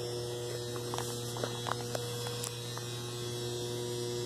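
Steady electrical mains hum with a few faint, scattered clicks.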